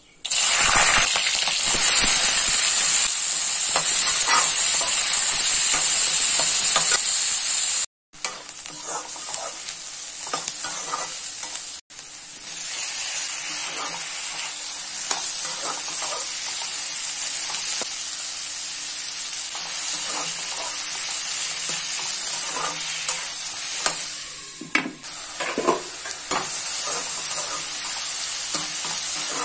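Hot oil sizzling loudly in a metal kadai as whole spices (cinnamon, cloves, fennel seeds) fry. After a break at about 8 seconds, chopped onions, tomato and green chillies sizzle more quietly while a slotted metal spatula stirs them, scraping and knocking against the pan.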